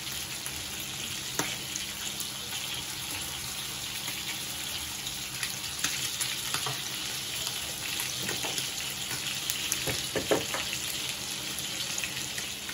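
Green beans, carrots and ground meat simmering in broth in a frying pan: a steady sizzling, bubbling hiss, with a few light clicks.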